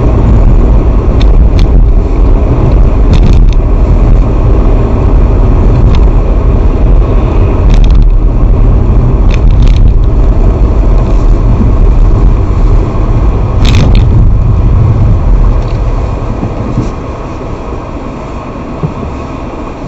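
Car cabin noise while driving: a steady low rumble of engine and road, which falls away about three-quarters of the way through as the car slows. A few short sharp clicks sound over it.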